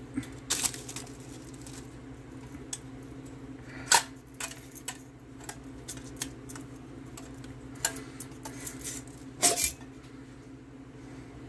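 Stainless steel canteen and its nesting cup being handled and unwrapped: paper wrapping rustling, light metal clinks and a small chain jingling, with louder knocks about four seconds in and near the end.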